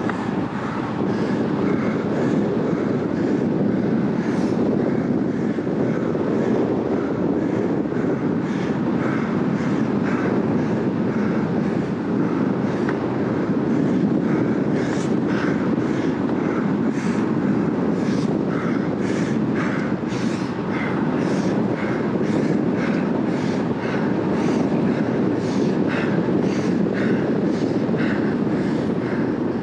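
Road bike at about 38 km/h: a steady rush of wind over the handlebar camera's microphone with the tyres humming on asphalt. Short hissing puffs recur about once a second.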